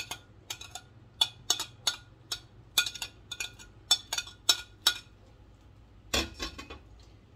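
A metal cooking utensil clinking against cookware as stewed cabbage is spooned out and spread: a quick run of sharp clinks, about three or four a second, for the first five seconds, then a duller knock about six seconds in.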